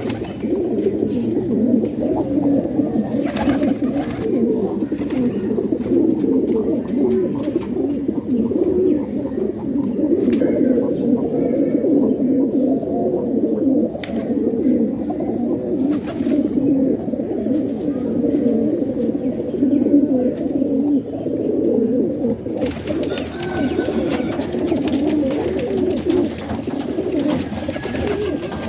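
Many domestic pigeons cooing together, a continuous overlapping low murmur of coos with occasional clicks and wing or foot noises.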